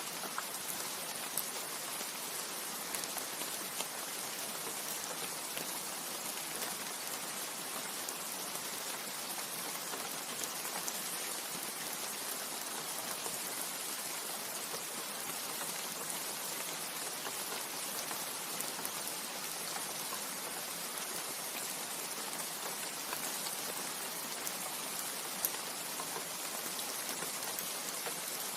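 Steady rain falling on leaves, an even hiss with scattered individual drop taps.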